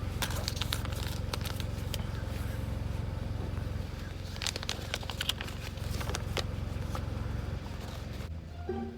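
Steady low rumble of a car's cabin while driving, with scattered clicks and crackles over it. Near the end it gives way to music.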